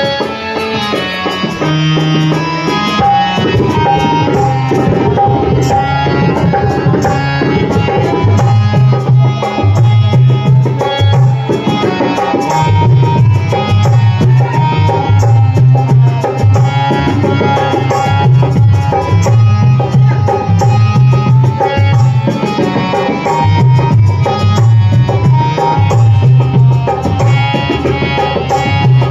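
Loud Indian devotional instrumental music: a rhythmic drum pattern over a deep, pulsing bass beat, with a melody line above.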